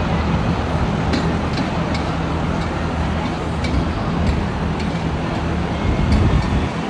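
Busy night-market food stall: a steady low hum under a wide, even background noise, with faint scattered clicks of metal spatulas on a steel griddle.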